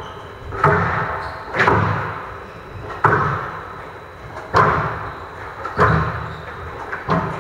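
Squash rally: about six sharp, hard smacks of the ball off rackets and the court walls, one every second or so, each with a short echo.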